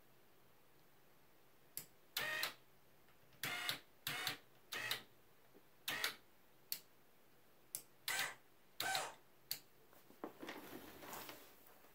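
The desk prototype's linear actuator motors jogged in short whirring bursts as the rocker switches on its control box are pressed and released, about a dozen quick clicks and whirs in a stop-start pattern. A softer, longer noisy sound comes near the end.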